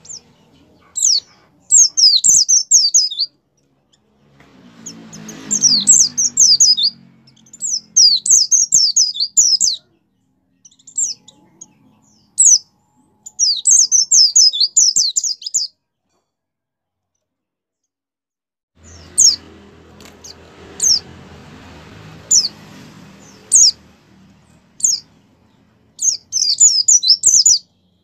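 A white-eye (pleci) in full, vigorous song: rapid, high twittering phrases of a second or two, repeated with short pauses, with a silence of about three seconds a little past the middle.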